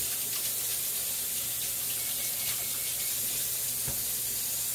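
KitchenAid stand mixer running, its motor and beater working a thick sausage-ball dough of sausage, cheese and biscuit mix with a steady, even whir.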